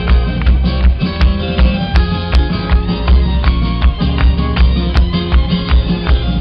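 A live band playing amplified music through a PA, with guitars over a heavy, steady bass beat.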